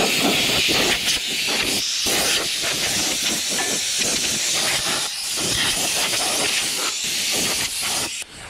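Compressed air hissing out of an air-hose nozzle as it blasts sand off an air-cooled VW engine, the sound rising and falling as the jet plays over the engine. It stops shortly before the end.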